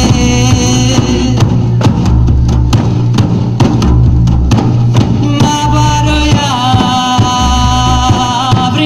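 Live southern Italian folk music: several large frame drums (tammorre) beaten together in a steady rhythm, with a woman singing over them through the PA. The singing drops away for a few seconds in the middle while the drums carry on, then comes back about five seconds in.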